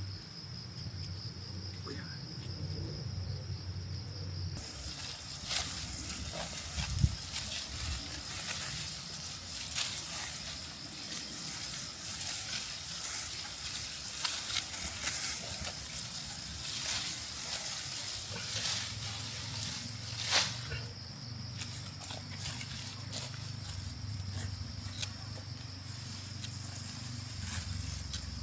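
Rice plants rustling and crackling as ears are handled and picked by hand, in a dense run of short crackles from about five seconds in until about two-thirds through. A steady high insect drone runs underneath.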